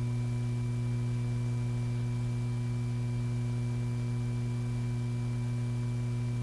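Steady low electrical hum with a faint hiss underneath, unchanging throughout.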